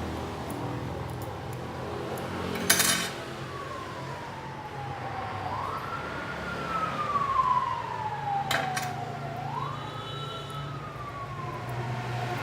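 A siren wailing, its pitch sliding slowly down and then sweeping quickly back up, twice. A sharp click about three seconds in is the loudest sound, and a second click comes later.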